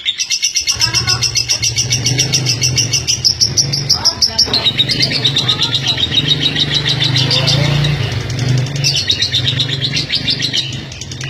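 Female lovebird's long, unbroken ngekek: a rapid rattling chatter of high chirps, many per second, that steps up and down in pitch a few times without pausing. This is the long-duration song that lovebird fanciers prize.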